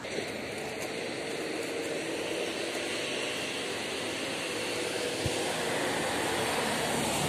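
Steady rushing hum of motor traffic on the street, slowly growing louder.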